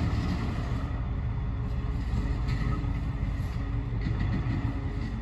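British Rail Class 14 diesel-hydraulic locomotive D9516 running as its train moves away: a steady low rumble with several held tones from its Paxman Ventura diesel engine.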